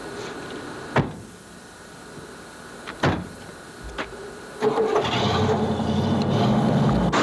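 Two car doors slam shut about two seconds apart, then the old sedan's engine starts a little past halfway and keeps running steadily.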